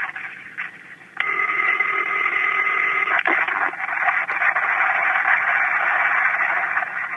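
Telephone line ringing from an old switching recording, played over a satellite phone call. About a second in, a ring tone comes in abruptly over heavy line hiss and stops with a click near three seconds in; the hiss carries on after it. This is the intercept trunk's ringtone starting up as the call heads to intercept.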